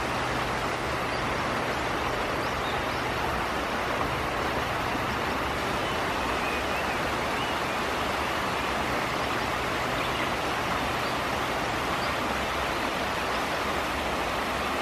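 Shallow river water rushing steadily over a stony riffle.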